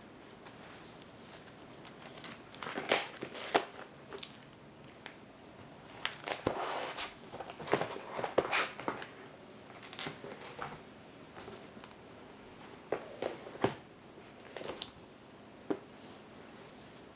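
Recipe binders being handled and their pages leafed through: plastic page protectors rustling and crinkling, with several sharp clicks and knocks scattered through, the loudest a few seconds in and again near the middle.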